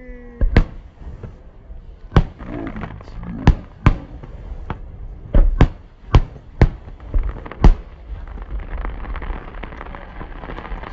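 Aerial fireworks shells bursting: about ten sharp, separate bangs in the first eight seconds, some close together in pairs. Toward the end they give way to a steadier noisy wash.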